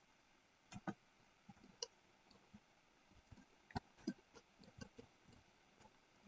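Faint, scattered clicks of a computer mouse and keyboard, about six in all, some in quick pairs, against near silence.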